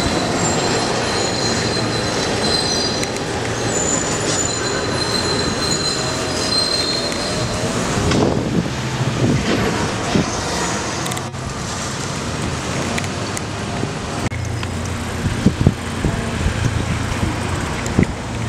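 Rail vehicle running with its wheels squealing: several high steady squeal tones over the first half, over the rumble of the running car and street traffic. A few short knocks come near the end.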